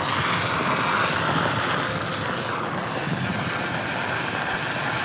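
De Havilland Beaver propeller plane's engine droning in a steady roar as it drops water on a forest fire.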